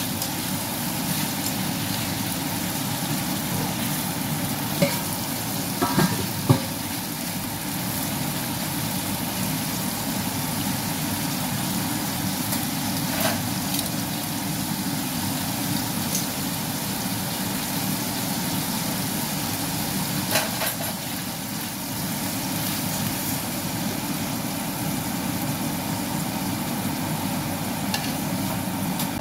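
Thin-sliced beef sizzling as it fries in a nonstick pan, with a few sharp clicks and scrapes of metal tongs turning the meat.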